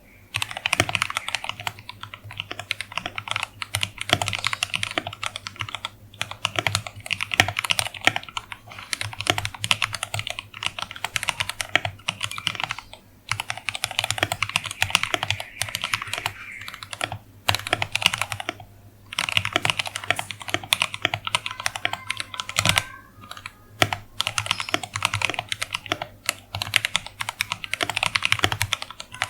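Fast typing on a mechanical keyboard with lubed Gateron Yellow linear switches and PBT keycaps: a rapid stream of keystroke clacks with short pauses between bursts, and a steady low hum underneath.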